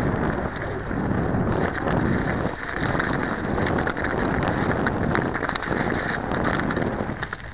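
Bicycle tyres crunching over snow and slush, with wind buffeting the microphone. The noise eases briefly near the end.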